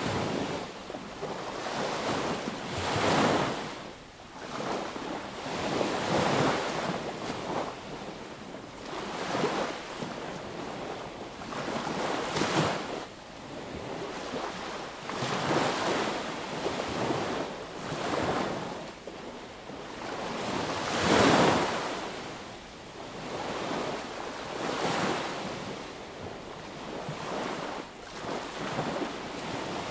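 Sea waves breaking and washing up a beach, surging and ebbing every few seconds, the loudest wave about two-thirds of the way through.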